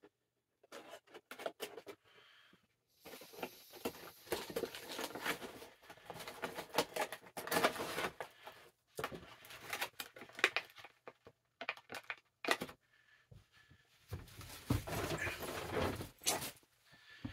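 Plastic action-figure packaging being handled and pulled open, crinkling and tearing in bursts with many small sharp clicks.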